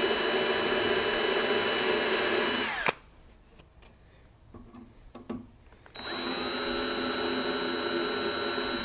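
Small electric drill boring through an abalone shell inlay into the ebony fretboard beneath. The motor runs steadily, winds down and stops about three seconds in, then spins up again about six seconds in for a second run.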